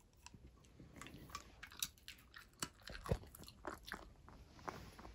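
A dog chewing a small hard treat: a faint, irregular string of crunches.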